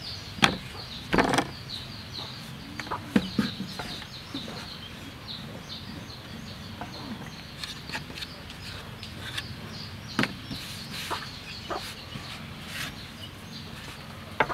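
Chickens clucking now and then over a steady high chirping in the background, with a few sharp knocks and pats of hands and a rolling pin on a wooden dough board, the loudest about a second in.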